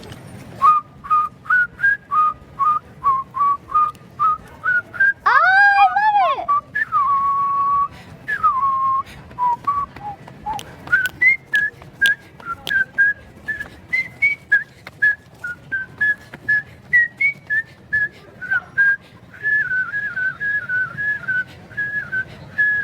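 A whistled tune of short, clean notes hopping up and down in pitch, over a light clicking beat. About six seconds in, a brief sound with overtones glides up and back down in pitch.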